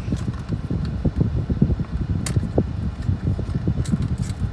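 Low rumble inside a car's cabin, with a few faint clicks and crinkles from a small paper badge packet being handled, the clearest about two seconds in and near the end.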